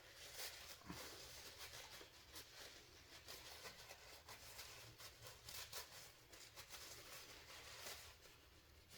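Faint, irregular small clicks and light scrapes of hands handling the small metal parts of a torque wrench's ratchet head.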